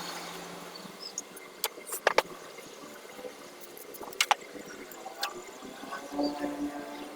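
A few sharp clicks and knocks over a steady hiss, with a low hum coming in near the end.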